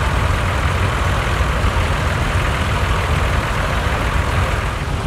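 Vintage tractor engine idling steadily, a loud, low, even rumble.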